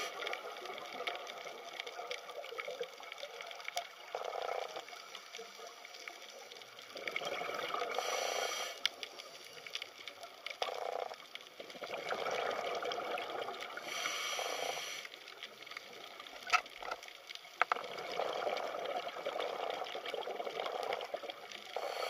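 Underwater ambience picked up by the camera: a steady water hiss with louder rushing surges every few seconds and a couple of sharp clicks a little after the middle.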